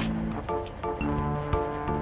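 Cartoon background music with a steady beat: a bright melody of short held notes over a drum hit about twice a second.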